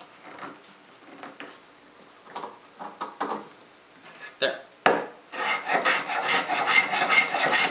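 Light knocks and rubs of a wooden handscrew clamp's jaws being adjusted, then a sharp click about five seconds in. After that a hand bench plane shaves the end grain of a wooden board with a loud, dense scraping.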